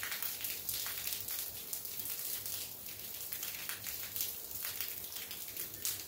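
Rain falling during a thunderstorm: a steady hiss with frequent, irregular close drop hits.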